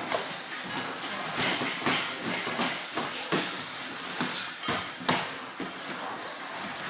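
Irregular thuds and slaps of boxing gloves and bodies against each other and the gym mats during mixed martial arts sparring and grappling, with a sharp hit about five seconds in.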